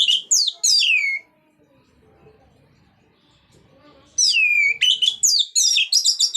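Orange-headed thrush singing loud, falling whistled phrases, then a pause of about three seconds, then a quick run of phrases near the end.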